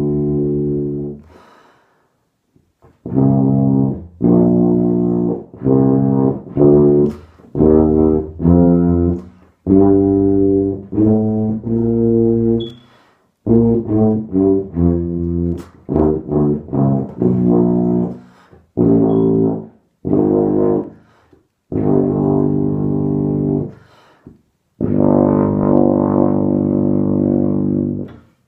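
Kanstul BBb marching tuba played solo: a run of low, pitched brass notes in short phrases separated by brief pauses, changing pitch from note to note and ending on a long held note.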